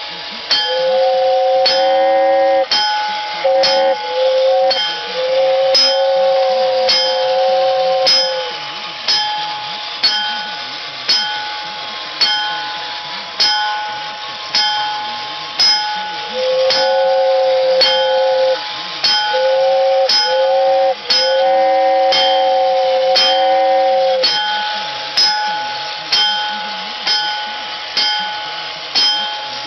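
Vintage 1960s Japanese Silver Mountain battery-operated tin toy locomotive running: its bell dings roughly once a second over a steady high hum, and a two-tone whistle sounds in long stretches, cutting in and out.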